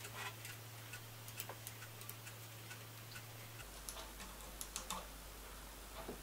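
Faint, irregular light clicks and taps of small metal parts being handled: a thin turned metal ring being fitted onto a stub held in a stopped lathe chuck. Under it runs a low steady hum that drops lower a little over halfway through.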